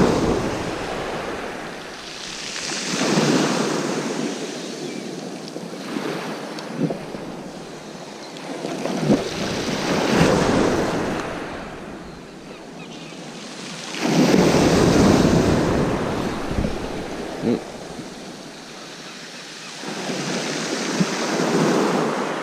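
Sea waves breaking and washing up a beach, surging and fading every few seconds, with wind buffeting the microphone.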